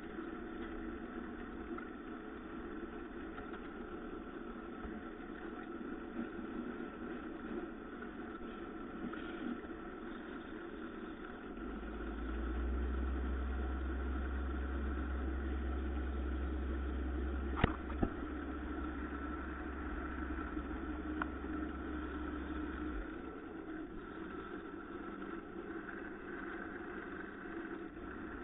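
Electric wood lathe running steadily while sandpaper is held to the spinning turned piece. A deeper low hum joins for about ten seconds in the middle, and there is one sharp click a little past halfway.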